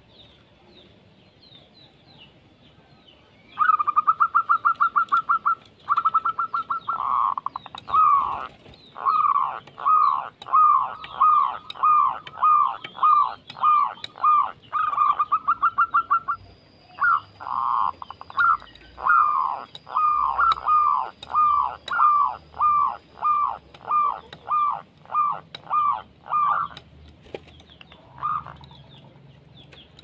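Zebra dove singing: a fast run of short notes, then a long series of clipped, downward-slurred coos about two a second, with a brief pause partway through.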